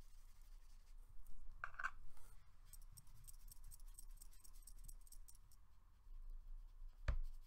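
Small handling sounds of drawing materials on a desk: a brief squeak about two seconds in, faint fast ticking for a couple of seconds, then one sharp tap near the end.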